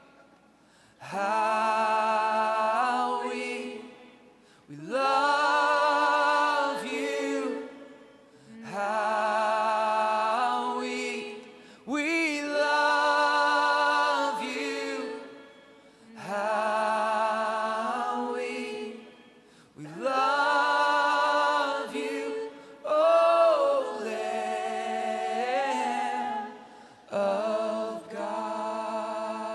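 Voices singing a slow worship song unaccompanied, in phrases of about three seconds separated by short pauses, with vibrato on the held notes.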